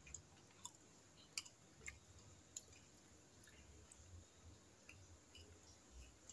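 Faint eating sounds in near silence: a few soft, scattered clicks and smacks from eating rice and fried food by hand off a plate.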